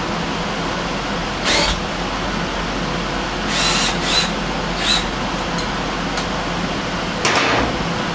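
A cordless power drill/driver run in about five short trigger pulls, each a brief whir with a high whine, against a steady background hum. It is working at a rounded-out Torx bolt in the gas tank's petcock that will not come out.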